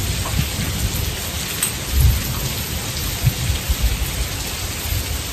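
Steady heavy rain in a rainstorm, hissing evenly, with short low rumbles and thumps underneath at intervals, the clearest about two seconds in.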